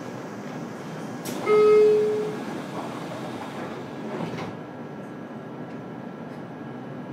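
Inside a JR Kyushu 303 series electric train car standing at a platform as the doors close: a click, then a single door-warning chime tone held about a second, then the sliding doors thudding shut about four seconds in. The car's steady hum runs underneath, with less outside hiss once the doors are shut.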